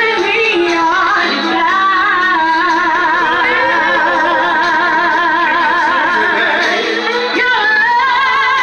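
A woman singing through a microphone and PA speakers, holding one long note with a wide, wavering vibrato through the middle before moving on to shorter phrases.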